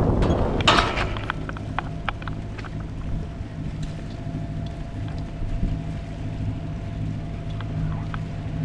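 Wind buffeting the microphone, easing off about a second in, leaving a steady low hum with scattered light ticks.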